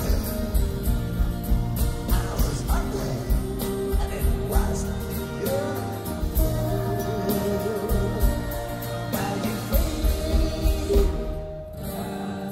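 Live rock band with guitars, bass and drums playing in an arena, with a steady drum beat, heard on an audience tape. The band briefly drops in loudness near the end before playing on.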